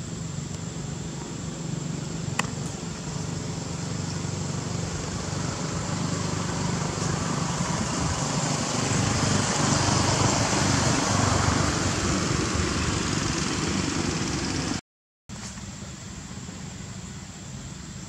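A motor vehicle engine running steadily, swelling louder toward the middle. The sound cuts out for a moment about three-quarters of the way through, then carries on lower.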